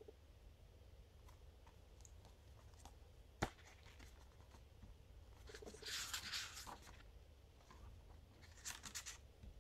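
Pages of a softcover paper booklet being handled and flipped through, with one sharp click a few seconds in and two short bursts of riffling paper, one about six seconds in and one near the end.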